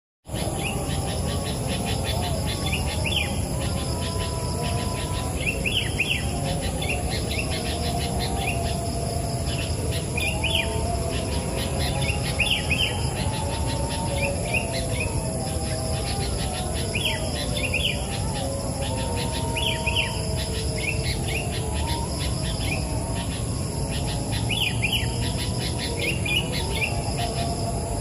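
Sooty-headed bulbul singing a short phrase about every two to three seconds, over a steady high insect buzz.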